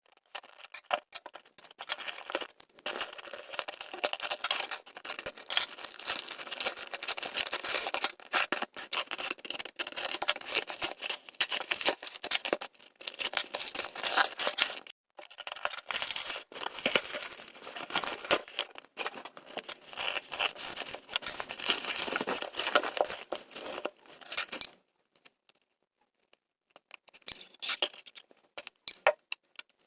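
Packaging of an eyeshadow palette being unwrapped by hand: dense, irregular crinkling and tearing that stops about 25 seconds in, followed by a few sharp clicks near the end.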